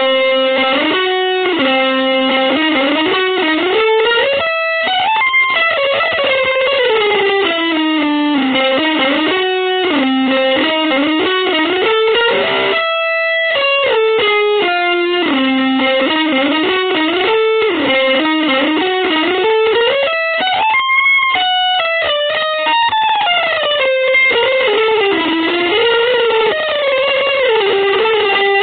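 Electric guitar playing fast, winding melodic lines that climb and fall without pause, the notes run through effects.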